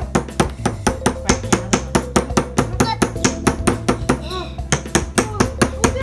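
Wooden mallet rapidly tapping a chisel into a plaster excavation block: a fast, even run of sharp knocks, several a second, chipping away the plaster around a toy dinosaur skeleton.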